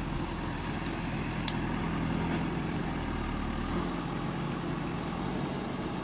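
JCB backhoe loader's diesel engine running steadily, its pitch shifting slightly midway as the machine works. A brief sharp click about a second and a half in.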